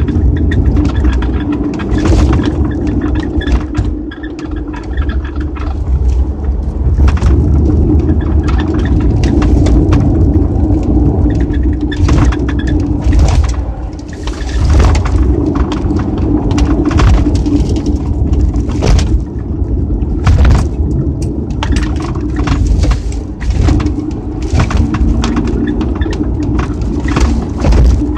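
Mazda RX-7 (FD3S) cabin with the car running: a steady low engine and road rumble, with irregular short squeaks and creaks from around the rear hatch. This is the abnormal squeaking noise the owner is chasing.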